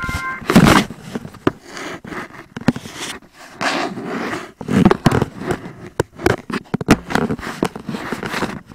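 Irregular scraping and rustling with many sharp clicks and knocks, like handling noise; no tone is playing.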